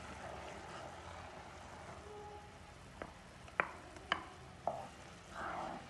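Cornflour and sugar syrup simmering in a nonstick pan: a faint steady hiss, with four light knocks between about three and five seconds in, as pineapple paste is poured in.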